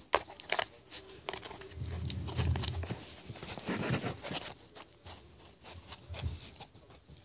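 Small pet pig eating macaroni and cheese from a plastic cup: irregular smacking and chewing, with clicks and knocks as its snout pushes the cup around.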